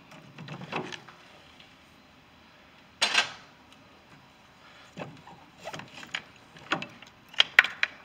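Handling noise as an A/C compressor and its lines are worked loose by hand: scattered clunks and clicks of metal parts, a louder scraping knock about three seconds in, and a quick run of sharp clicks and knocks near the end.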